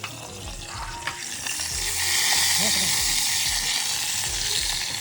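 Food sizzling in hot oil in a pan. The hiss swells about a second in and then stays loud and steady.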